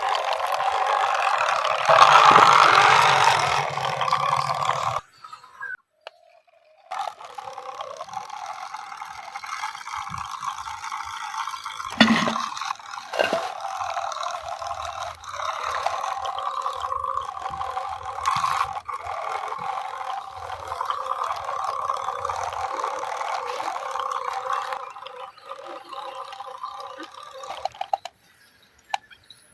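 Small electric motor and gearbox of a homemade RC off-road truck whirring as it drives, with rattling; the sound cuts out abruptly twice.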